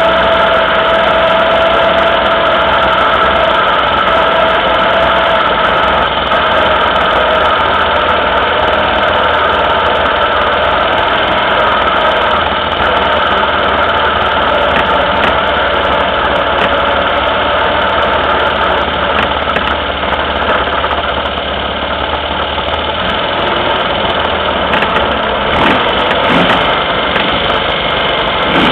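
Onboard sound of a 602/652-class racing buggy's engine running steadily at low revs, mixed with the engines of the other buggies around it.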